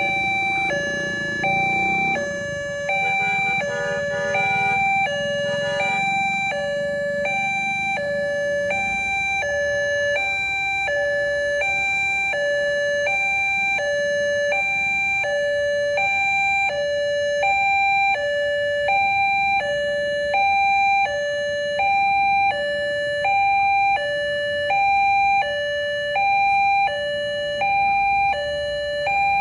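Railway level-crossing warning siren sounding a two-tone alarm, switching evenly between a higher and a lower tone about twice a second.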